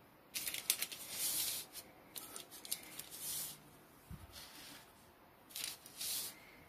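Parchment paper rustling in short bursts on a baking sheet as hands press puff pastry pieces into place, with a soft knock about four seconds in.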